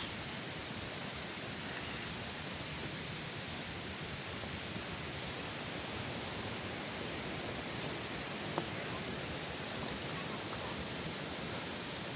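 Waterfall: steady rush of falling water, with a short click right at the start and another past the middle.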